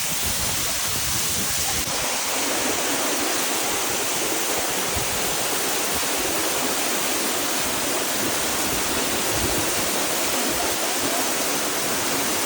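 Waterfall: falling water rushing and splashing in a steady, unbroken roar of noise.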